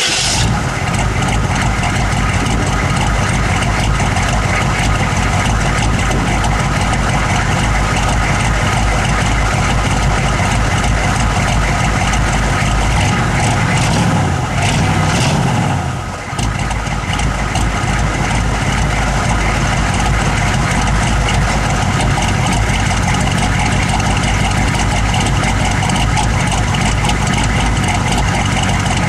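Engine running at a rough idle just after starting. It briefly changes about 14 seconds in and dips about 16 seconds in, then settles back to a steady idle.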